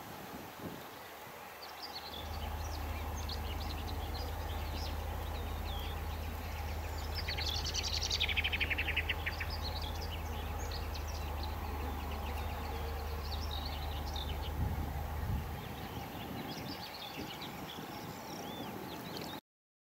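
Small birds chirping and singing, with a fast, buzzy trill about eight seconds in. Under them a low steady rumble starts about two seconds in and stops about fifteen seconds in. All sound cuts off just before the end.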